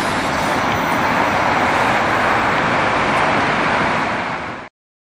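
A 2003 Skoda 60-foot articulated electric trolleybus pulling away: a loud, steady rush of tyre and road noise. It cuts off abruptly about four and a half seconds in.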